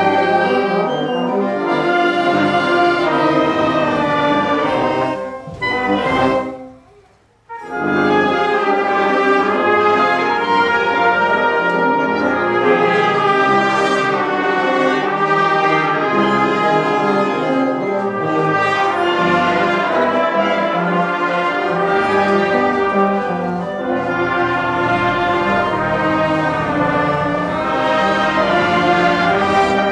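Massed Oaxacan wind bands (bandas filarmónicas) playing together: clarinets, flute, saxophones, trombones and tubas. About six seconds in the music breaks off briefly, then resumes.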